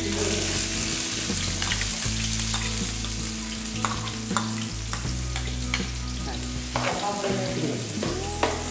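Chopped onions sizzling as they hit hot oil in a large aluminium pot, with sharp metal clinks from a spoon and a steel ladle against the pot as they are tipped in and stirred.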